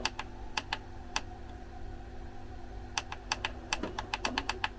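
Small buttons being clicked, a few scattered presses in the first second, then a quick run of about ten presses near the end, as when stepping through a menu setting.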